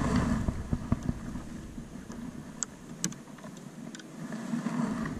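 Gusty wind buffeting the microphone in a low, uneven rumble that eases off in the middle, over water splashing and lapping around a kayak as it is paddled. There are a couple of sharp clicks about two and a half and three seconds in.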